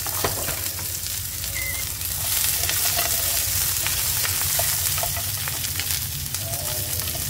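Chopped onion, ginger and garlic sizzling as they dry-roast in a frying pan, turned with a spatula that scrapes and taps against the pan. The hiss grows louder about two seconds in.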